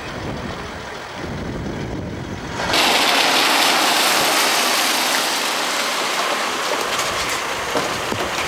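Wind rumbling on the microphone, then from about three seconds in a steady loud hiss of cars pulling up on the road. Sharp car-door clicks come near the end.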